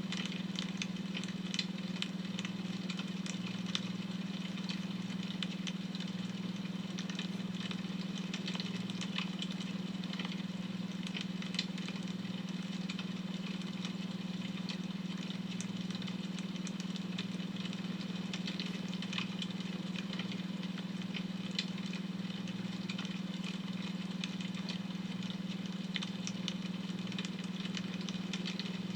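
Wood fire crackling, with small irregular pops, over a steady low hum from a beta-wave brainwave tone.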